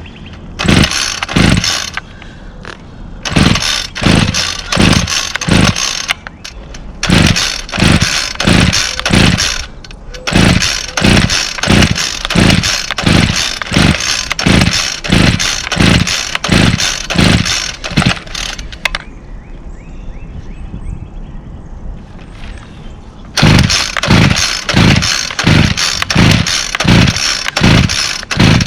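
Recoil starter of a 2010 Homelite CS26 string trimmer with a 26cc two-stroke engine, pulled over and over in runs of quick pulls, about two a second. The engine turns over without catching and running.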